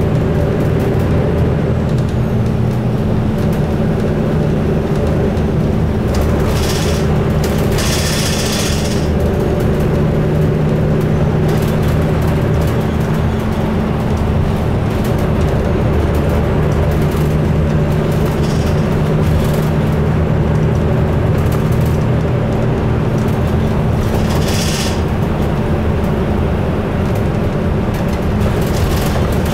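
Bus engine and road noise heard inside the cabin: a steady low drone, with short hisses about seven seconds in and again near 25 seconds.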